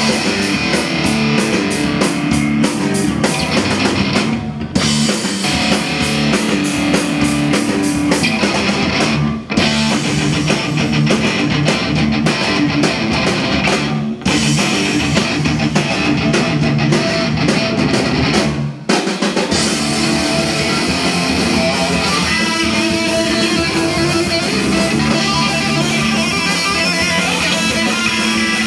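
Rock band playing live: distorted electric guitar, electric bass and a Sonor drum kit in an instrumental passage. The band cuts out for a split second about every five seconds four times, then plays straight on.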